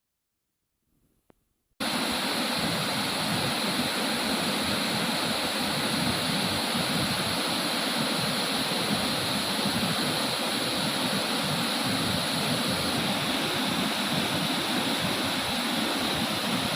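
Waterfall: a steady rush of falling water that cuts in suddenly about two seconds in, after near silence.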